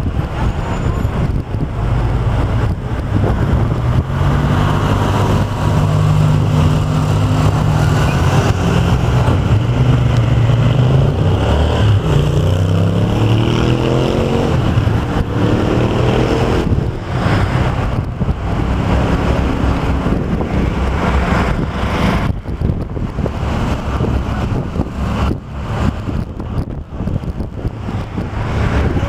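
Vehicle engine running steadily, then rising in pitch as it speeds up about twelve to sixteen seconds in, over steady wind and road noise on the microphone.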